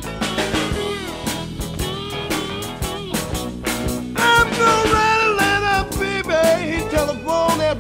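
Electric blues band playing an instrumental break: guitar and a bending lead line over bass and a steady drum beat, with the lead growing louder and higher about four seconds in.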